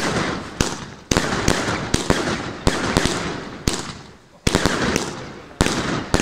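Aerial fireworks bursting overhead: a rapid series of sharp bangs, about two a second, with crackling between. There is a brief lull about four seconds in, then the bangs resume.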